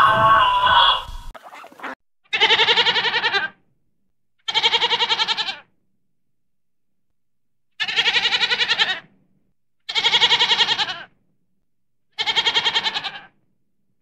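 A goat kid bleating five times, each bleat about a second long with a fast quavering tremble, with one to two seconds of quiet between them. Before the first bleat, a different loud pitched sound cuts off about a second in.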